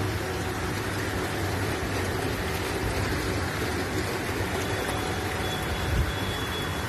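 Small pool fountain's bubbler jets splashing steadily, a continuous rushing of falling water with a low rumble underneath.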